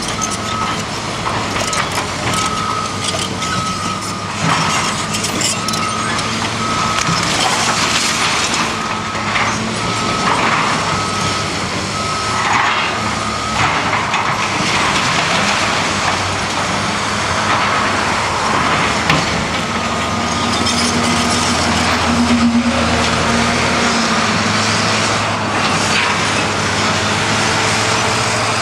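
Hydraulic excavator running steadily as it tears down a brick building, with brick and debris crashing down in noisy stretches around the middle. A back-up alarm beeps about once a second for the first half and briefly again later.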